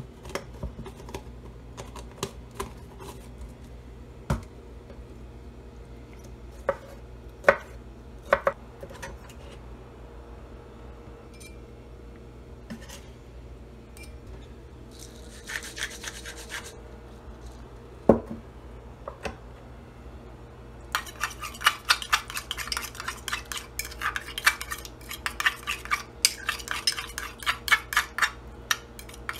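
Scattered clinks and taps of utensils and containers on a wooden cutting board, with a brief scrape as a chef's knife pushes chopped pickles and chipotle into a small bowl. From about two-thirds of the way in, a metal utensil stirs thick mayonnaise-based burger sauce, clicking rapidly against the sides of the bowl.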